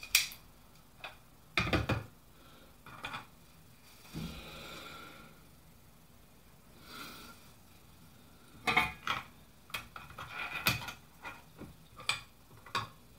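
Small clicks and knocks of circuit boards and tools being handled and set down on a workbench, in irregular bursts, with two soft hissing sounds between them.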